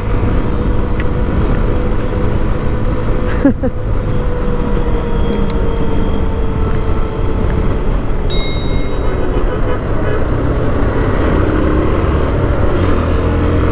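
Motorcycle riding at highway speed: the Lifan KPR 165's single-cylinder engine runs steadily under wind and road noise, its note sinking slightly over the first several seconds. A vehicle horn toots briefly about eight seconds in.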